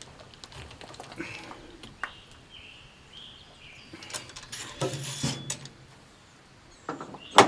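Scattered metallic clinks and scrapes of a ramrod working a bullet down a muzzle-loading rifle's barrel, busiest about four to five seconds in, with a sharp click just before the end. The bullet is going down harder than before, a sign the barrel is getting fouled.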